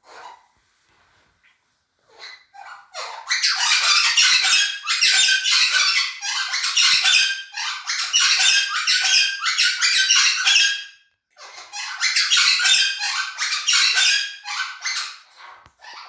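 Cuban Amazon parrots screeching loudly in two long bouts of harsh, rapidly repeated calls, the first starting a few seconds in and the second after a brief break about eleven seconds in.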